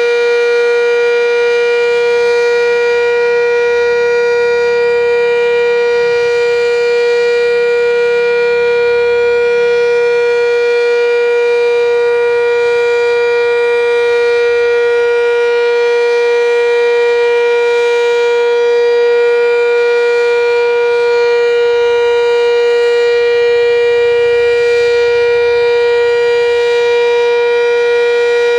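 Sentry 7V8-B outdoor warning siren sounding a steady tone at full speed: one loud held pitch with a stack of overtones, not rising or falling, on a siren test.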